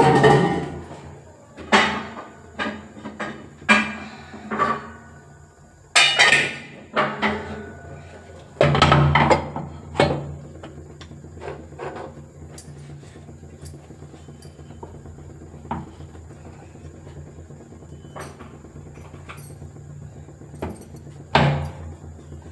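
Metal kitchen utensils and pots clanking and ringing as they are handled and set down: about a dozen sharp knocks in the first ten seconds, then occasional light clicks and one more loud clank near the end.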